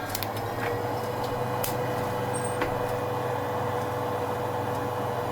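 Skywalker drum coffee roaster running with a steady motor and fan hum, and a few scattered sharp pops from the beans in first crack.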